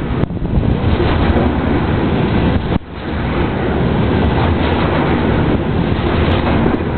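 Covered hopper cars of a BNSF grain train rumbling past close by, a steady noise of wheels on rail, briefly dipping twice.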